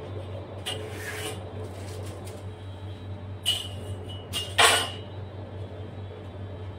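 A steady low hum under a few brief clatters or knocks, around one, three and a half and four and a half seconds in, the last the loudest.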